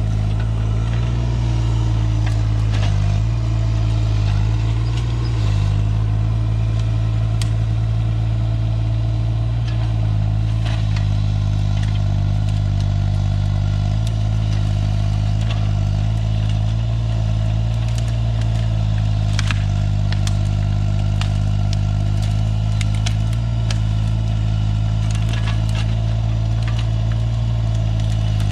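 A compact piece of heavy equipment's engine running steadily at an even pitch, with scattered clanks and rattles from the machine working.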